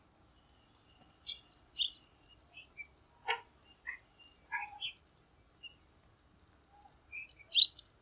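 Bengal bush lark calling: a scattered series of short, high chirps from about a second in to about five seconds, then a quick cluster of high notes near the end.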